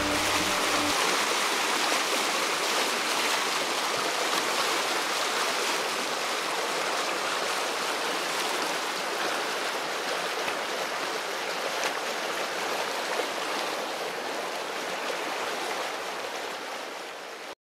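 Rushing river water of a rapid pouring over rocks, a steady hiss that fades slightly near the end.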